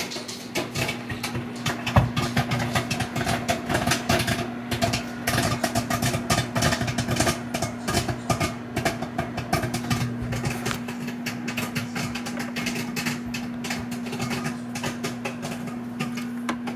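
Microwave oven running with a steady hum while popcorn pops inside, rapid sharp cracks that come thickest in the first half and thin out later. A single louder knock about two seconds in.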